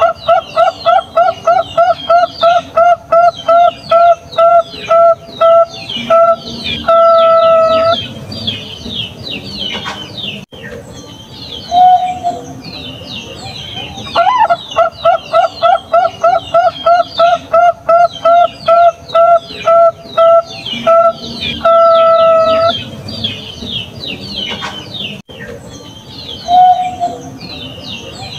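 Perkutut bangkok (Thai-bred zebra dove) singing. Each phrase is a rising opening note, a long run of short cooing notes at about four a second, a longer drawn-out closing coo, and a few seconds later one short coo. The same phrase comes again about halfway through, over constant high-pitched chirping of other small birds.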